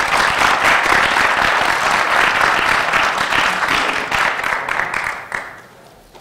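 Audience applauding, dense and steady, then dying away about five seconds in.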